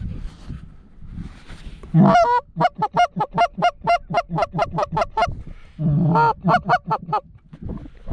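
Loud goose honking close by: one drawn-out call about two seconds in, then a rapid run of short honks at about five a second, a brief pause, and a second shorter run.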